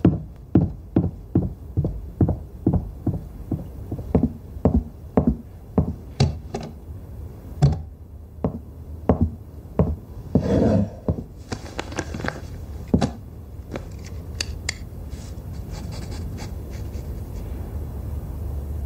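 A kitchen knife chopping on a cutting board in quick, even strokes, about three a second. Then a short scrape and a few slower, irregular chops.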